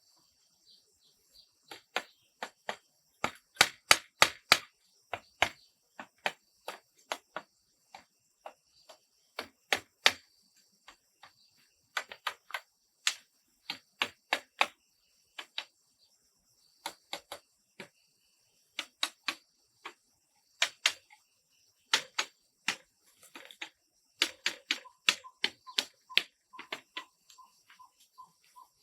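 An irregular series of sharp knocks and taps, some in quick clusters, over a steady high insect or bird drone; a pulsing tone joins in near the end.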